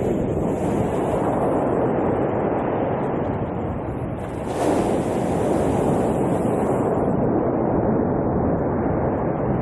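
Sea waves breaking and washing up a pebble beach. One wave breaks louder and sharper about four and a half seconds in.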